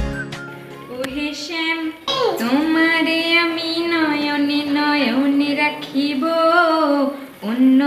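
A woman singing unaccompanied, starting about a second in, in long held notes that slide smoothly up and down in pitch, with a short pause for breath near the end.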